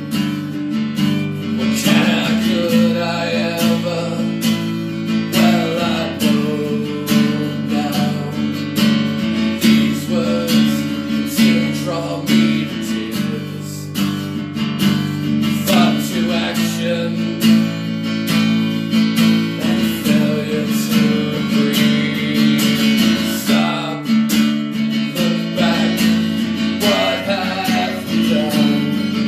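Acoustic guitar strummed in a steady rhythm, its chords ringing on.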